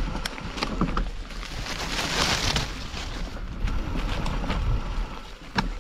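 Wind rumbling on the camera microphone while a mountain bike moves over rough ground, with scattered clicks and rattles. A rushing hiss swells briefly about two seconds in.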